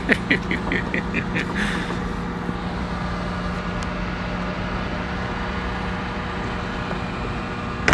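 Boom crane truck's engine running steadily with an even, droning hum, powering the crane. In the first second and a half there is a rapid run of short high chirps, and a sharp knock comes at the very end.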